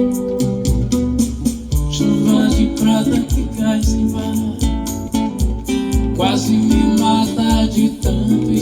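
Live bar music: a guitar played over a steady beat with bass, and a melody line coming in about two seconds in.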